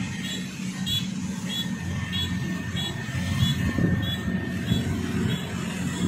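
Kubota DC-93 combine harvester's diesel engine and threshing machinery running steadily in the distance, a low rumble. A short high chirp repeats about every two-thirds of a second over it.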